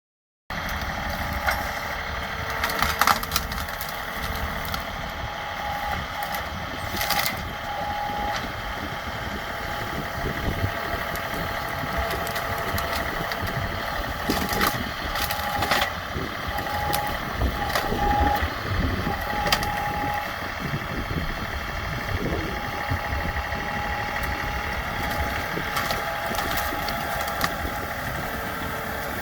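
An engine running steadily at about idle, with a few short knocks and clicks over it.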